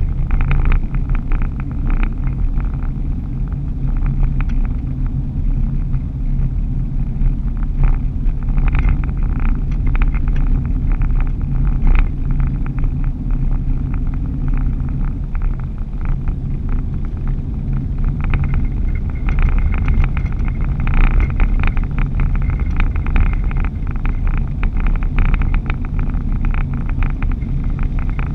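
Vehicle driving at road speed heard from inside the cab: a steady low engine and road rumble, with many small rattling ticks throughout.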